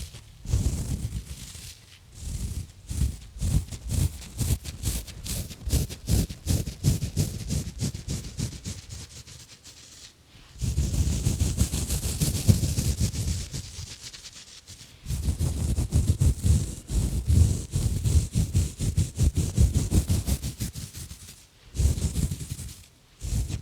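Exfoliation gloves scratching and rubbing close around a microphone: quick rhythmic scratching strokes, a few seconds of continuous rubbing near the middle, then more scratching strokes, with a short pause near the end.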